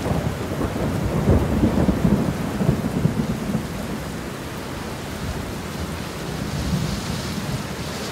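Thunder rumbling and crackling over steady heavy rain, strongest in the first three seconds or so, then easing to the rain alone.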